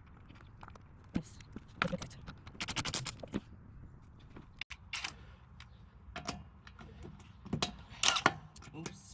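Metal tools and lug bolts being handled: scattered clinks and scrapes, with a quick run of rapid clicks a little under three seconds in and a louder clatter near the end.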